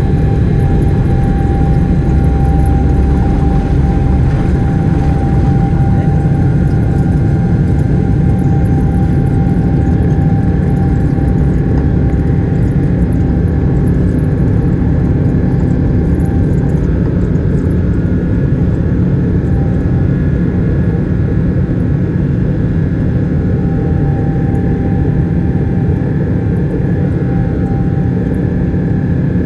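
Boeing 777-300ER's GE90-115B turbofan at takeoff thrust, heard inside the cabin as a loud, steady drone with a steady whine on top, through the end of the takeoff roll and into the climb. A deep rumble is heaviest in the first few seconds and then eases.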